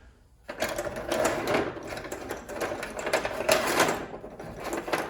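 Metal hand tools being handled and rattled: a quick, uneven run of metallic clicks and clatter that starts about half a second in.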